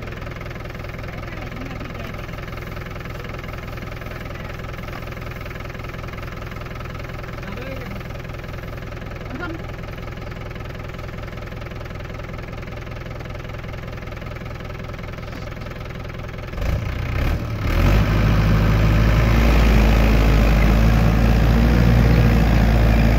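Tractor diesel engine idling steadily, then opening up about two-thirds of the way in and running hard and loud under load as it drags the stuck trolley forward out of the dug-out ground.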